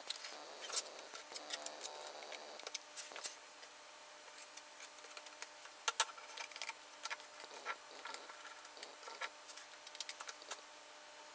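Scattered light clicks and taps of glue-spread red oak strips being picked up and laid together on a workbench, over a faint steady hum.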